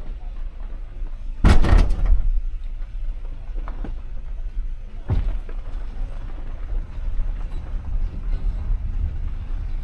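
Vehicle driving over a rough, unpaved mountain road: a steady low rumble with a loud jolt about one and a half seconds in and a sharp knock about five seconds in.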